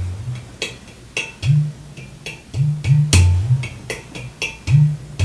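Ceramic hand drum played with the hands in a slow, loose groove: deep, mellow bass tones mixed with lighter finger taps, about two or three strokes a second.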